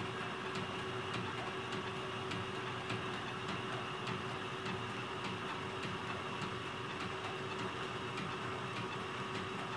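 Electric-motor-driven line shaft with leather belts running over its pulleys: a steady mechanical hum holding one constant tone, with a light, regular ticking.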